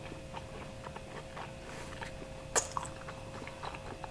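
A person chewing a mouthful of pizza, with soft wet mouth clicks and one sharper click about two and a half seconds in, over a faint steady hum.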